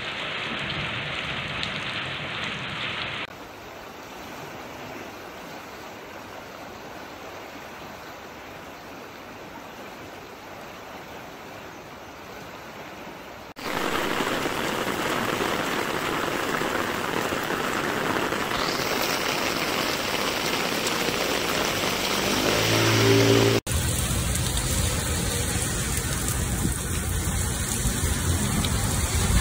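Steady rainfall, changing abruptly between recordings: a moderate shower, a quieter stretch, then a much louder heavy downpour splashing on a wet paved street about halfway through, with a brief low hum shortly before the last change, and finally rain falling on leafy plants.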